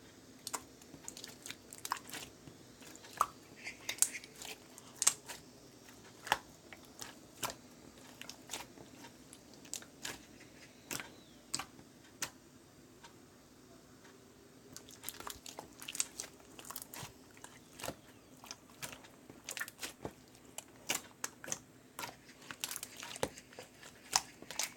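Hands squeezing and poking slime, making irregular sharp clicks and pops, with a quieter stretch about halfway. A faint steady hum runs underneath.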